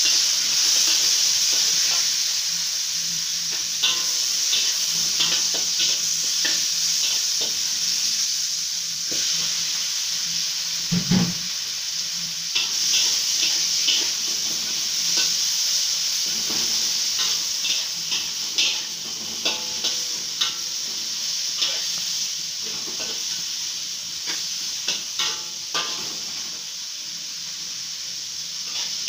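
Stir-frying in a metal wok: oil sizzles steadily under the food while a metal spatula scrapes and taps against the wok, tossing garlic and pieces of salted fish bone. A single low thump comes about eleven seconds in.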